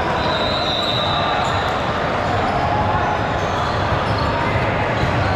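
Echoing din of a busy indoor volleyball gym: volleyballs thudding on the hardwood floor amid indistinct voices.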